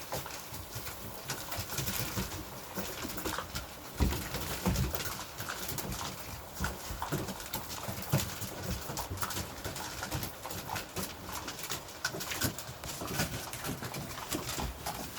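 A litter of young Mastadane puppies eating kibble together from one shared pan: many small clicks and crunches of kibble and pan, mixed with small puppy whimpers and grunts. There is one louder knock about four seconds in.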